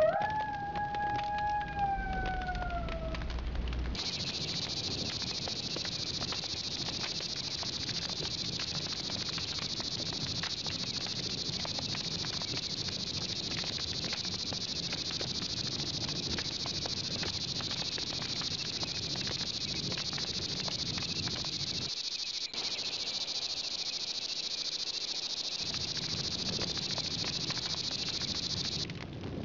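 Steady chorus of crickets chirping, starting about four seconds in. Before it, a single tone slides slowly downward for about three seconds.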